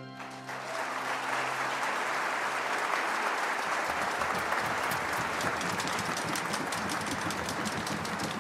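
Concert hall audience bursting into applause as the orchestra's final chord dies away. The clapping is dense and steady, with individual claps standing out more sharply in the second half.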